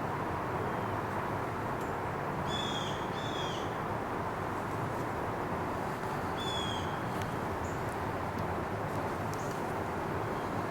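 A bird calling twice in quick succession, then once more a few seconds later, over a steady rumble of distant traffic.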